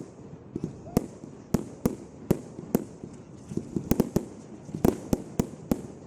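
Aerial fireworks exploding in quick succession: about a dozen sharp bangs, roughly two a second, irregularly spaced.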